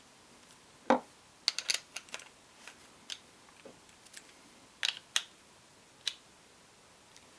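Scattered sharp clicks and small taps of hand tools and small parts against a baitcasting fishing reel as its handle nut is fitted, the loudest about a second in.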